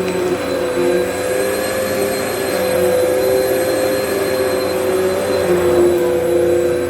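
Vacmaster UC0101 bagless upright vacuum running steadily, a continuous motor whine with a lower tone that wavers slightly.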